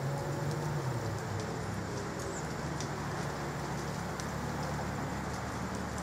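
Outdoor background with the warning siren silent between its test rounds: a steady low rumble of distant traffic and a few faint high chirps, with faint far-off siren tones dying away in the first second.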